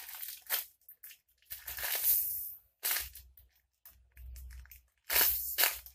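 Handmade squishy toy being handled and squeezed: several short rustling, crinkly bursts with pauses between.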